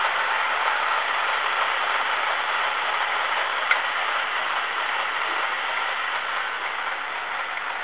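N gauge Graham Farish Class 31 model locomotive's DCC sound decoder playing a Zimo Class 31 diesel engine soundtrack through its small on-board speaker: a steady engine running sound, with a single sharp click a little under four seconds in and the sound easing slightly quieter near the end.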